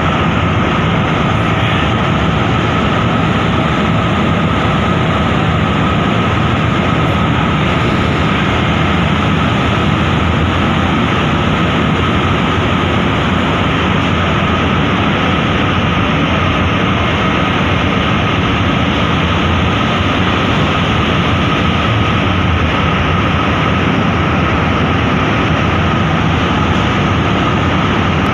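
Steady, loud mechanical drone of a car ferry's machinery heard on its vehicle deck: a constant rumbling noise with a thin steady whine above it.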